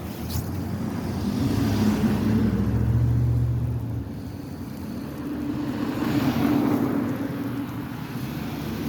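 Motor vehicles passing by twice, each a low engine rumble that swells and fades, over steady outdoor noise.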